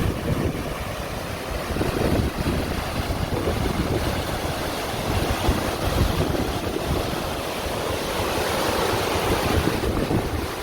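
Steady rushing of a large waterfall pouring off a cliff into the sea, with wind buffeting the microphone in an irregular low rumble.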